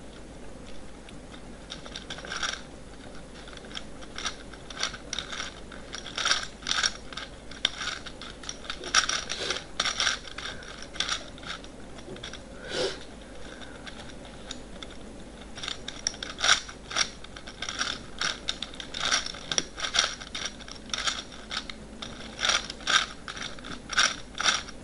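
Plastic Gear Cube puzzle, a replica of Meffert's Gear Cube, being turned quickly by hand during a solve. The interlocking gears give rapid clicking and rattling in irregular bursts, with a short lull about halfway.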